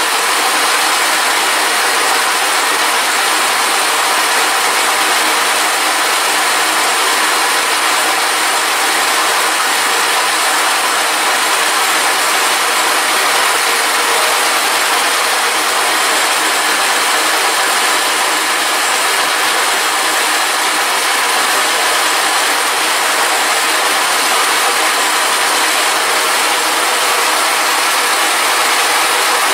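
Milling machine resurfacing a Peugeot-Citroën 2.0 HDi cylinder head, its face-milling cutter spinning across the deck: a loud, steady machining noise with a thin high whine.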